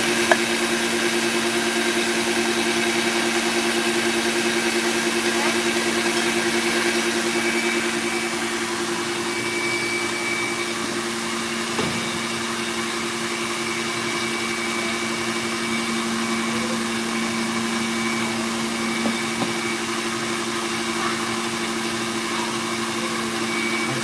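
KitchenAid Artisan stand mixer motor running steadily, its whisk whipping egg whites and hot sugar syrup into Italian meringue; a constant hum with a thin higher whine.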